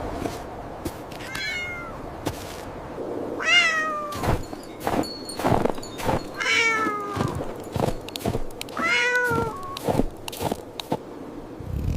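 A cat meowing four times, each meow starting high and falling in pitch, with scattered short clicks and knocks between the meows.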